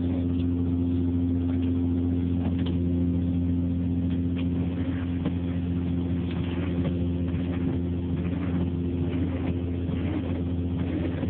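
Steady low mechanical hum of an automatic car wash, heard from inside the car's cabin, with a few faint ticks scattered through it.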